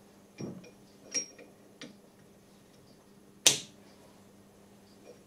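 A few separate sharp metallic clicks and knocks as a steel sample-holder ring is handled and seated onto a grinder-polisher's head, the loudest and sharpest about three and a half seconds in.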